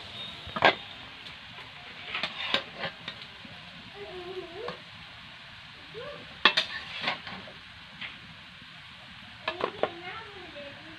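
Metal spatula scraping and clacking against a metal wok and a ceramic plate while scooping candied hog plums out of thick sugar syrup: four short bursts of sharp clatter over a steady low hiss.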